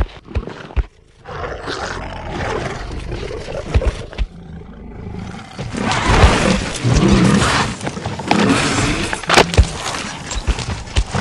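Monster sound effect of harsh roaring and growling with a deep rumble underneath. After a short lull, a louder, longer roar starts about six seconds in.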